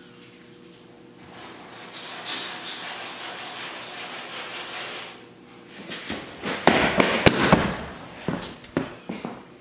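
Sandpaper on a hand sanding block rubbing over body filler on a car body, in rasping back-and-forth strokes. After about six seconds the strokes give way to a louder run of sharp knocks and clatter, with a few more knocks near the end.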